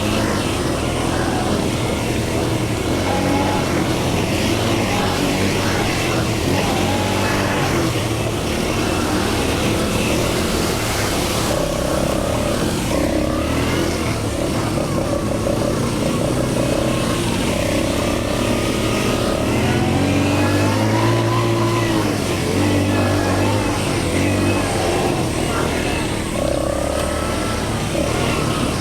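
ATV engines running during a ride, their pitch rising and falling as the throttle changes.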